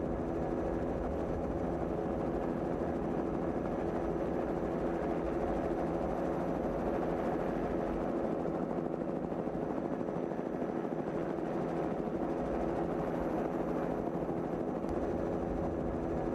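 Steady drone of a helicopter's engine and rotor, even in pitch and level throughout.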